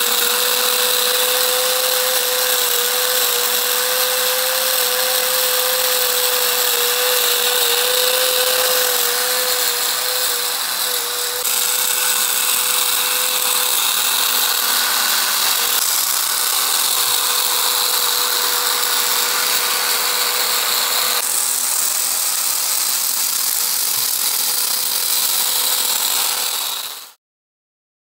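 Small electric motor spinning the propeller of a cardboard model biplane: a steady, high whirring whine that spins up to pitch right at the start, then cuts off abruptly near the end.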